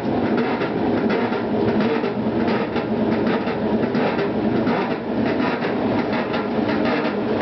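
Maytag Atlantis top-loading washer running with a loud, continuous mechanical clatter of fast, uneven clicks over a steady rumble. The noise is unexplained and persists after the gearbox was replaced.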